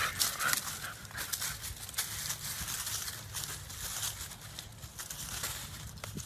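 Rustling and crackling of ivy and dry leaves underfoot as a dog and a fawn move about in undergrowth, a run of quick irregular crackles.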